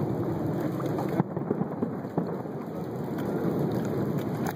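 Distant fireworks over a lake: a steady low rumble like rolling thunder, with scattered faint pops and crackles and one sharper pop about a second in.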